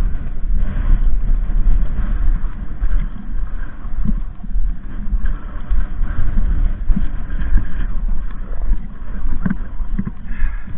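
Wind buffeting the camera microphone: a loud, uneven low rumble, with a few short thumps.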